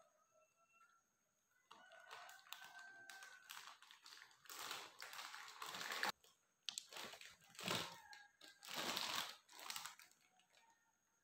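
Plastic packaging of a toy block set crinkling as it is shaken and handled, in several bursts from about four seconds in.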